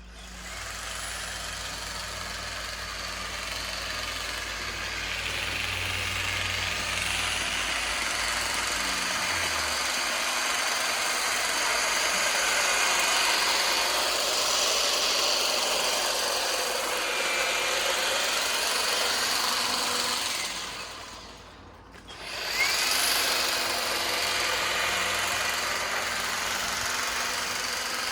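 Ego battery-powered multi-tool with its hedge trimmer attachment running, its blades cutting through a tall hedge. About three-quarters of the way through it stops for about a second, then starts again.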